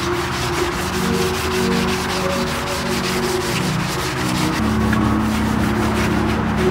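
Cloth scrubbing back and forth over foamy degreaser on the painted sheet-metal inner fender of an engine bay, a continuous scratchy rubbing, with background music underneath.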